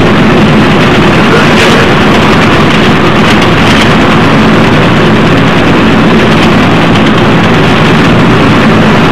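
Double-decker bus engine running with road noise, heard from inside the passenger deck as a loud, steady drone.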